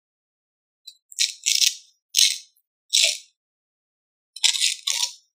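Rustling of a Trixie dog cooling vest's fabric as it is unfolded and handled: about five short, crisp bursts from about a second in.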